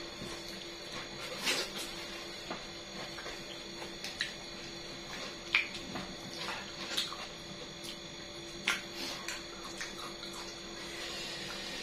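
Eating sounds from chicken feet in chilli sauce being chewed and sucked: scattered wet mouth smacks and small clicks, about a dozen, over a steady background hum.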